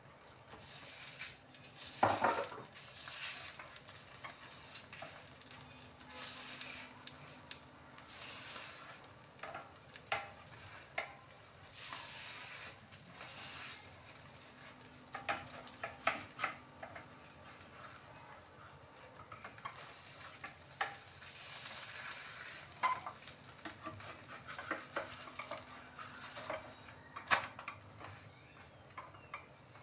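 Oil sizzling in spells under a paratha frying in a nonstick pan, with a wooden spatula scraping and clicking against the pan as the bread and egg are pressed and turned.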